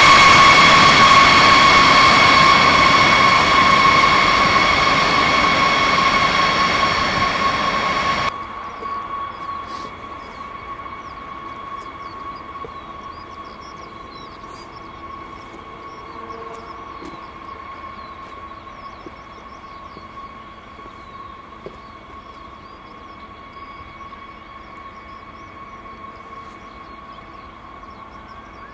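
Boeing B-52H Stratofortress's eight TF33 turbofan engines running at taxi power, a loud rushing noise with a steady high whine. About eight seconds in the sound drops abruptly to a much fainter, distant version of the same whine.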